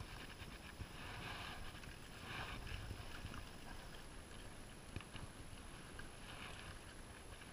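Faint handling noise from an angler working a spinning rod and reel: a few soft rustles over a low steady rumble, with one light click about five seconds in.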